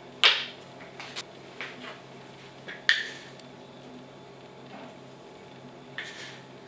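A glass jar and a plastic measuring spoon clinking and knocking: several short sharp clinks, the loudest about a quarter second in and just before three seconds, smaller ones between, and one more near the end as the spoon scoops salt from the jar.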